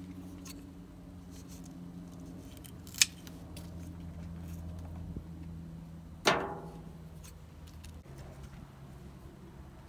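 Two snips of garden scissors cutting courgette plant stems, one about three seconds in and a louder one a little after six seconds that rings briefly. A steady low hum runs underneath.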